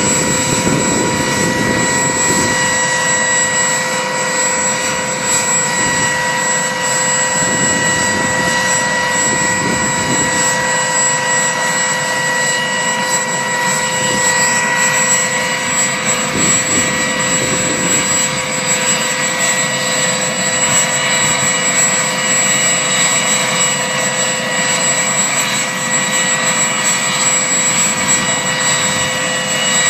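Firefighting helicopter running, with a steady high turbine whine over the rushing noise of its rotor.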